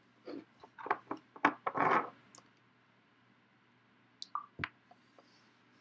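Small clicks and scrapes of a vape mod and its dripping atomizer being handled and opened to change the cotton, a quick run of them in the first two seconds and a few sharp clicks near the end.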